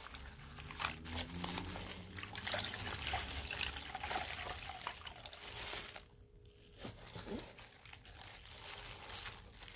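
Soaked perilla leaves being wrung out by hand in plastic gloves over a steel bowl: water dribbling and splashing back into the bowl, with the gloves crinkling. There is a short lull about six seconds in.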